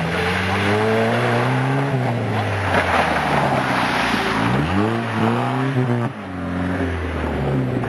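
Off-road truck engine revving under load. Its pitch climbs, falls, and then rises sharply about halfway through before dropping again near the end, with a rushing noise in the middle stretch.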